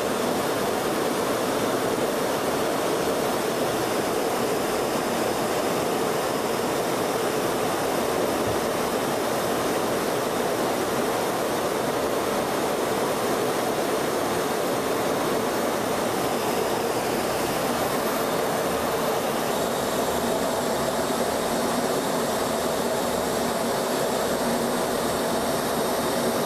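Steady jet aircraft roar at an even level, with no rise or fall in pitch; faint high whining tones join it about twenty seconds in.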